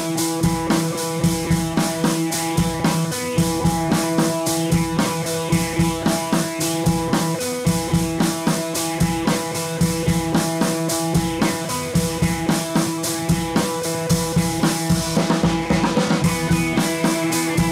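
Background music with a steady drum beat over sustained notes.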